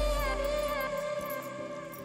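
Background music: an instrumental beat with a held, wavering melody over deep bass. The bass drops out about a second in, and the music slowly gets quieter.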